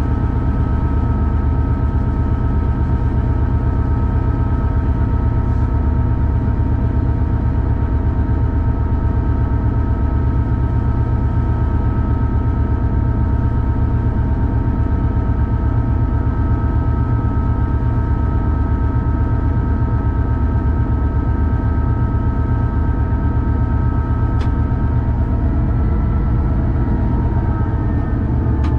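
Class 66 diesel-electric freight locomotive heard from inside the cab while running: the steady drone of its two-stroke V12 diesel engine with a steady whine on top. The whine starts to drop in pitch near the end.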